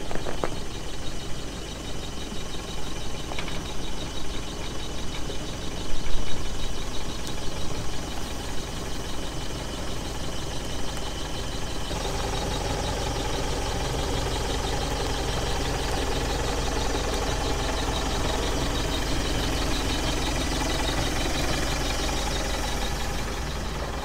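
Mitsubishi L200 pickup's engine running at low speed as it crawls forward towing an off-road caravan, with a few knocks and a thump in the first half. About halfway through it becomes louder and steadier as it comes close.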